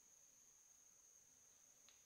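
Near silence under a faint, steady, high-pitched insect drone, with one short chirp near the end.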